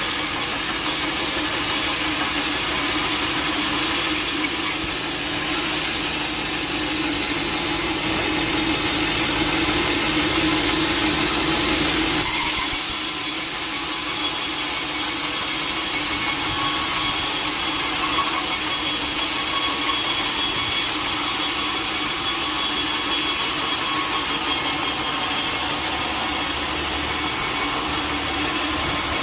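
Sawmill blade cutting lengthwise through a log: a steady sawing noise with a thin high whine over it. About twelve seconds in, the sound changes abruptly and the low hum drops away.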